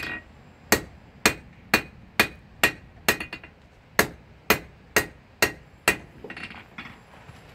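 Blacksmith's hand hammer striking a red-hot metal bar on an anvil, tapering it, at about two blows a second with a short pause midway. Each blow rings briefly. The hammering stops about six seconds in, followed by a few softer knocks.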